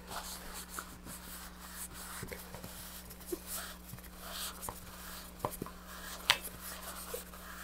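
Paper towel rubbing and dabbing around the joint of a fiberglass nose cone and its shoulder, wiping off squeezed-out epoxy, with soft handling knocks and one sharp click about six seconds in, over a faint steady hum.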